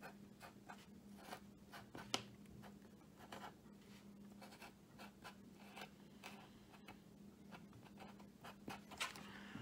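Faint, short scratchy strokes of a Sharpie marker writing a label on blue masking tape.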